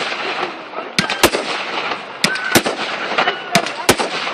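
Fireworks display going off: about six sharp bangs at irregular intervals, with a continuous noisy rush between them.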